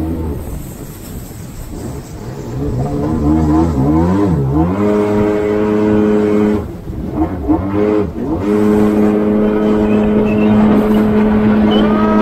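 Jet ski engine revving: the pitch wavers and climbs a few seconds in, holds steady, drops away briefly in the middle, then picks up again and runs steady at high revs.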